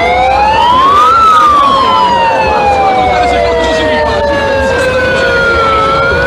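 Siren wailing in a slow rise and fall: it climbs for about a second, sinks slowly for about four, then starts climbing again near the end, over a steady tone.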